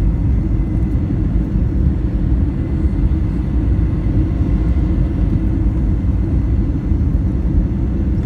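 Airbus A321 cabin noise: a steady low rumble of engines and airflow, with a faint steady whine above it.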